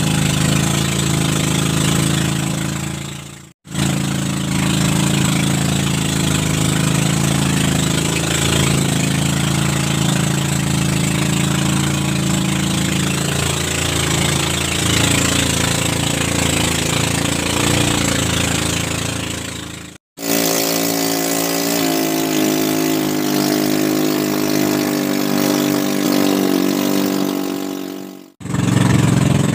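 Boat engine running steadily, its pitch shifting in the later stretch. The sound drops out briefly three times where the clips are cut.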